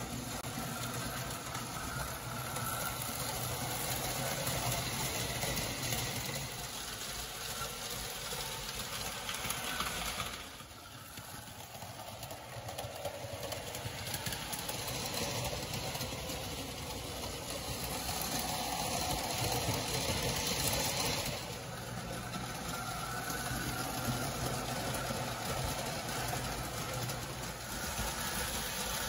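Marx 999 O-27 toy steam train set running on three-rail tinplate track: a steady electric-motor hum with the noise of the wheels on the rails. The sound drops briefly about ten seconds in, then carries on.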